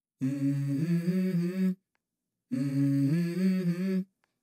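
A voice humming a short tune: the same phrase of a few notes stepping up in pitch, about a second and a half long, heard twice with a short silence between.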